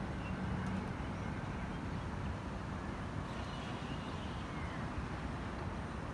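Steady outdoor rumble of wind and distant city traffic ahead of a rainstorm, with no rain falling yet.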